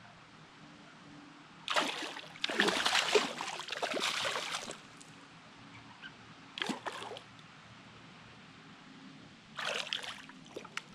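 Hooked largemouth bass thrashing and splashing at the water's surface during the fight. There are three bouts of splashing: a long one of about three seconds starting a little under two seconds in, a short one near the middle, and another short one near the end.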